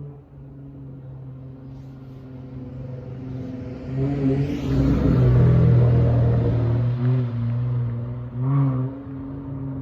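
Dodge Charger SXT exhaust through Flowmaster Outlaw mufflers on a slow street drive: a low, steady engine note that swells under throttle to its loudest about four to seven seconds in, then eases off, with a short surge near the end.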